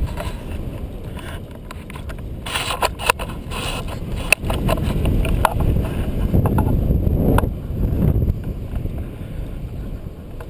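Airflow buffeting the microphone of a camera carried on a tandem paraglider in flight: a steady, loud low rumble. It is broken by several sharp clicks and knocks, with a busier stretch of rustling between about two and eight seconds in.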